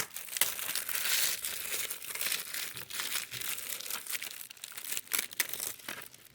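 Plastic wrapping being torn and crinkled off a DVD case, a steady crackling broken by sharp snaps.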